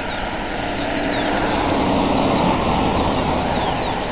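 A vehicle passing by: its noise swells to a peak about two and a half seconds in and then fades. Under it, a large flock of black birds keeps up short, falling chirps.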